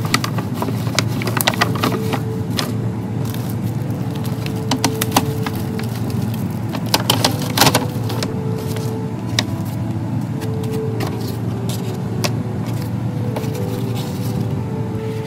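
Kraft paper bags and bubble-wrapped albums rustling, crinkling and clicking as they are handled and slid into the bags, with a burst of louder crackles about halfway through, over a steady low rumble.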